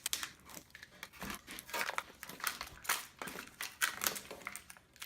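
Irregular crinkling, crackling and tearing as a swollen, glued-in MacBook Pro battery is forced out of its case, its adhesive and plastic giving way.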